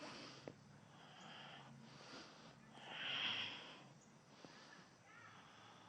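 A yoga practitioner breathing deeply while holding a pose, close to a clip-on microphone. A louder breath comes about three seconds in, with fainter breaths before and after it and a couple of small clicks.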